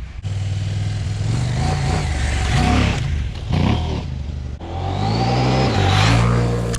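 Motorcycle engine accelerating. Its pitch rises, drops at a gear change, and rises again twice.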